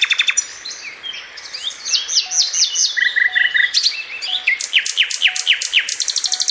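Nightingale singing a varied song: fast runs of repeated notes, clear whistles and quick falling sweeps, ending in a rapid trill.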